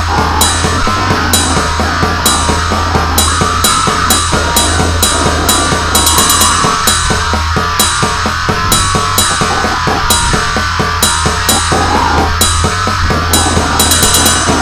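Goregrind music: a heavily distorted low drone under pounding drums, with cymbal crashes roughly every second and fast drum rolls about six seconds in and again near the end.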